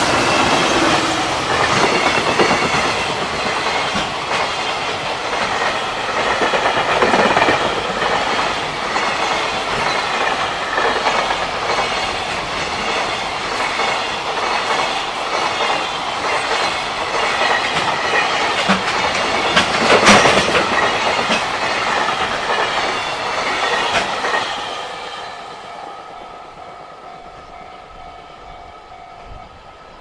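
A freight train pulled by a JR Freight EF210 electric locomotive passes close by: first the locomotive, then a long string of container wagons with their wheels clicking over the rail joints. There is one sharp loud clank about 20 seconds in, and the train noise fades away from about 25 seconds. A level-crossing warning bell rings steadily through the passage.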